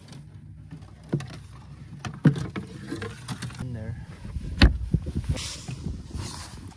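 Knocks and clunks of a bass boat's fiberglass rod locker lid being lifted and a fishing rod pulled out, with three sharp knocks, the loudest about four and a half seconds in.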